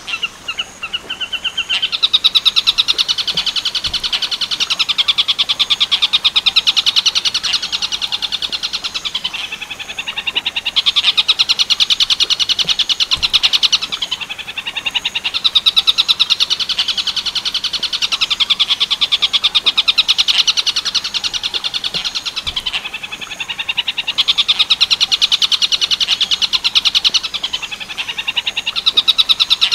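Recorded song of a tengkek buto bird, Werkudoro style: a fast, high rattling trill delivered in long phrases of a few seconds each, with brief breaks between them.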